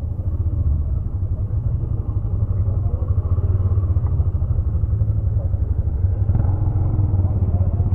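Motorcycle engine running as the bike rides along the street: a steady low rumble, with a little more mid-range engine sound from about six seconds in.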